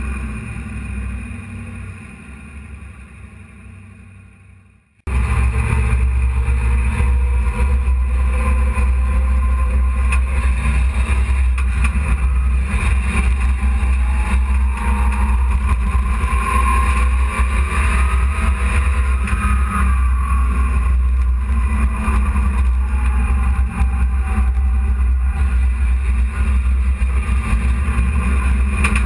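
Dirt-track hobby truck's engine heard from inside the cab, running steadily at an even pace. The sound fades away over the first few seconds, then cuts back in suddenly at full loudness about five seconds in.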